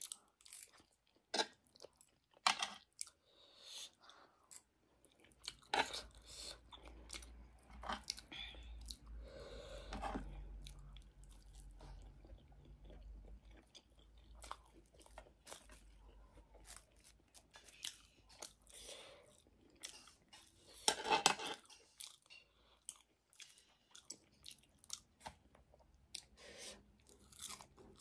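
Close-up eating sounds: irregular chewing and crunching of food in the mouth, with a louder burst about three quarters of the way through.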